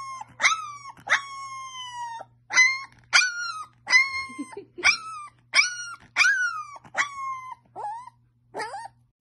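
Puppy howling: about a dozen high, yelping howls in a row. Each jumps up in pitch and then slides down, and some are drawn out for about a second.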